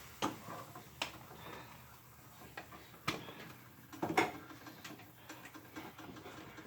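Kitchen utensils knocking and clicking: a handful of sharp taps at irregular intervals over a faint background.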